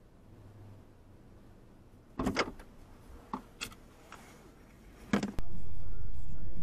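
Car door heard from inside a parked car: a loud clunk about two seconds in, a few short latch clicks, and another clunk about five seconds in. From just after that a steady low rumble takes over, louder than anything before it.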